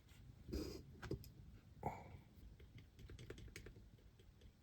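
Faint, scattered small clicks and taps from electronic parts being handled on a workbench, a few light knocks spread over several seconds.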